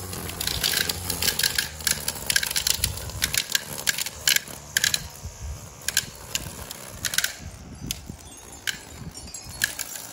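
String trimmer cutting grass, its spinning line clattering against grass and wood chips in a rapid, irregular run of sharp ticks over a faint motor hum.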